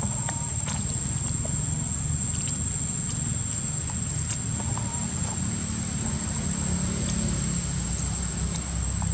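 Outdoor ambience: a steady high-pitched insect drone that holds one pitch throughout, over a continuous low rumble, with a few faint clicks.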